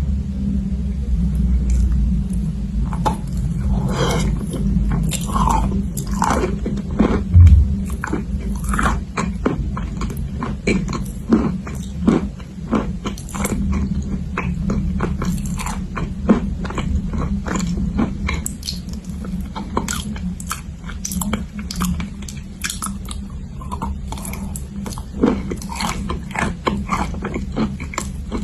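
Close-miked biting and chewing of dry edible chalk clay: many sharp, crisp crunches, some in quick runs, with a steady low hum underneath.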